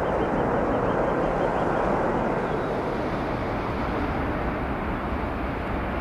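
Jet airliner engines, a steady broad roar that eases off a little about halfway through.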